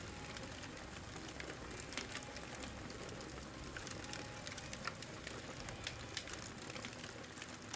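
Campfire crackling: a steady faint hiss of burning wood with scattered sharp pops and snaps.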